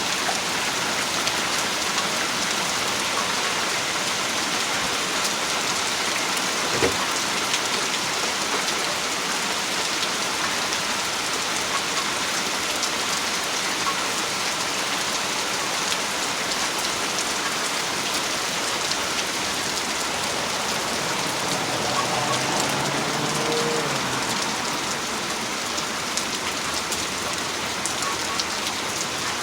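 Heavy rain falling steadily, with one sharp click about seven seconds in.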